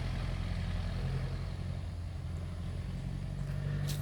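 A vehicle engine running steadily at low revs, a constant low hum, with a brief click near the end.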